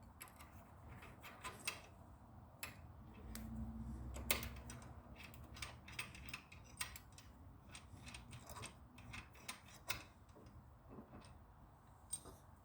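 Faint, scattered small metal clicks and ticks as an Allen key backs the bolts out of a Butler chemical pump's housing, with a brief low rumble about three seconds in.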